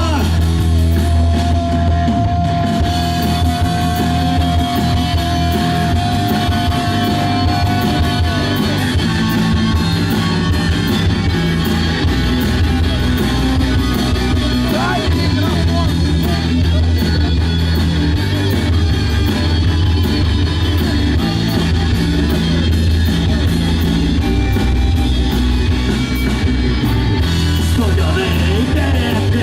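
Rock band playing an instrumental passage live, with electric guitar and drum kit; one long note is held from near the start for several seconds.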